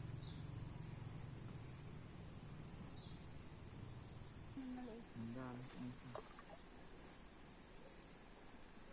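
Crickets and other night insects keep up a steady, high-pitched chorus. A brief low voice is heard about five seconds in.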